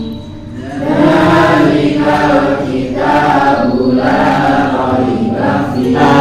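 Students reciting Quran verses aloud together in unison, a chorus of chanting voices. The recitation comes in just under a second in and goes on in phrases about a second long, with short breaks between them.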